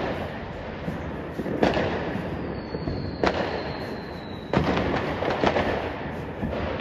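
Fireworks going off: a continuous rumble and crackle of many distant bursts, with sharp loud bangs about a second and a half in, about three seconds in, and several more between four and a half and five and a half seconds in. A thin high whistle sounds faintly through the middle.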